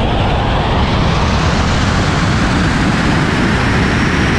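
Tesla Model S Plaid accelerating hard down a drag strip, heard as a steady, loud rush of wind and tyre noise.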